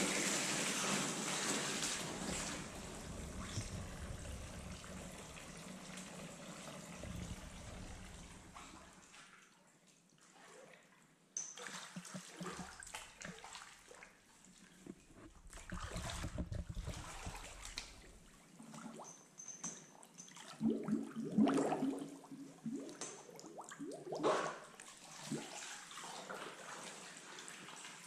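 Bathwater sloshing and splashing as a person wearing rubber boots climbs into a full bathtub and moves about in it, with trickling and dripping. A steady rush of water dies away over the first several seconds, and the loudest splashes come in the second half.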